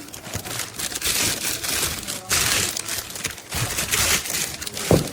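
Packaging crinkling and rustling in uneven bursts as the safe and its parts are handled, with a knock near the end.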